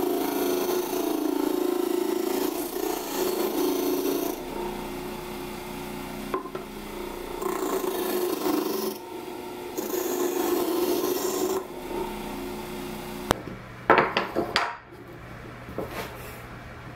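Homemade drill-driven disc sander running with a steady hum while a plywood piece is pressed against its sanding disc, the rasp of sanding rising and falling over several passes. About four seconds from the end the sanding stops abruptly, followed by a few sharp knocks of wooden blocks set down on a wooden workbench.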